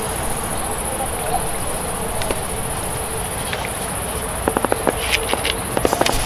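Steady, high-pitched chirring of insects in summer grass. About four and a half seconds in, a run of quick clicks and knocks starts.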